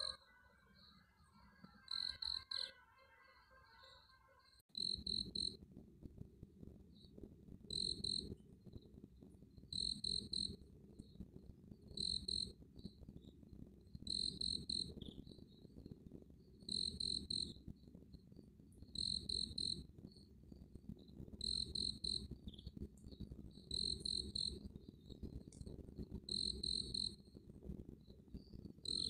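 An insect chirping in short, high-pitched bursts, about one every two seconds. From about five seconds in, a steady low background rumble runs underneath.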